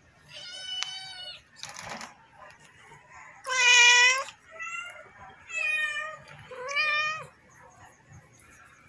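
Flat-faced exotic Persian cat meowing repeatedly, about five high meows, the loudest near the middle.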